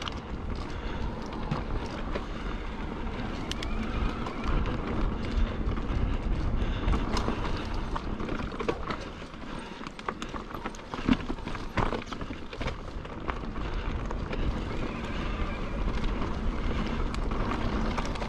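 Mountain bike descending a rocky, rooty trail: tyres crunching over gravel and stones, with scattered knocks and rattles from the bike, and wind rumbling on the microphone.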